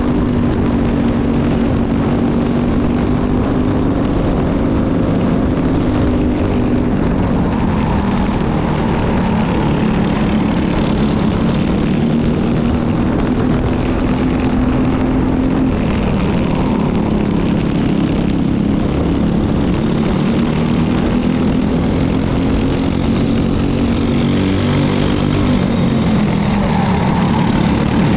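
Briggs & Stratton LO206 single-cylinder four-stroke kart engine running at race pace, heard onboard over a steady rush of wind. Its pitch drops and climbs again several times as the kart slows for turns and accelerates out.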